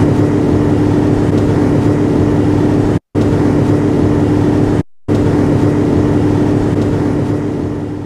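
A motorboat's engine running steadily at cruising speed, with a rush of wind and water noise. The sound breaks off briefly twice, about three and five seconds in, and fades near the end.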